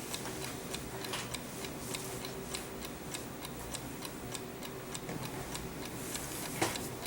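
Clock ticking steadily, a regular run of light ticks.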